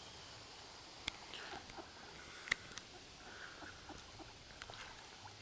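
Ducks on a pond, faint: a few soft, short calls and scattered sharp ticks, the loudest tick about two and a half seconds in.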